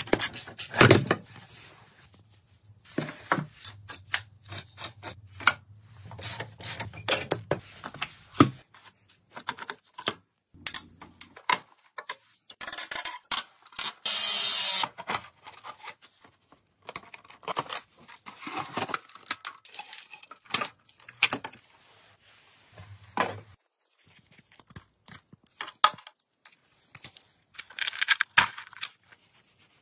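Hand tools working on a rusted steel motorcycle frame: a socket ratchet clicking in quick runs as bolts are undone, with many small metal clinks and knocks. About fourteen seconds in there is a scrape about a second long, a steel blade prying at rust.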